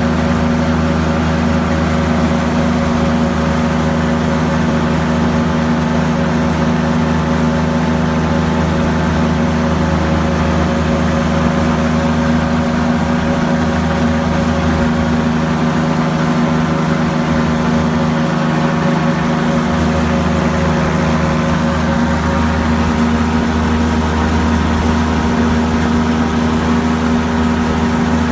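Engine and propeller of an open-cockpit ultralight aircraft droning steadily in level flight, with no change in pitch.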